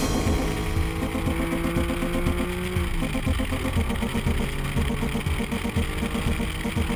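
Porsche 911 GT3's flat-six engine pulling hard under acceleration out of a corner: its note rises steadily, then drops about three seconds in with an upshift and climbs again. It is heard from a camera mounted outside the car, low on the flank.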